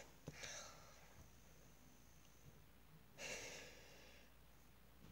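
Near silence with faint room tone, broken by a small click and a short breathy exhale early on, then a louder breath or sigh of about a second starting around three seconds in, close to the microphone.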